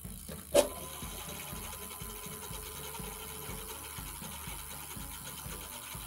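E-bike motor driven from the throttle through the controller under test, spinning up and running steadily with a faint even whine and a low regular pulsing. A sharp click comes about half a second in.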